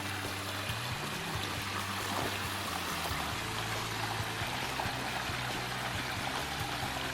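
Soft background music with low held notes that change every second or two, over a steady rushing noise.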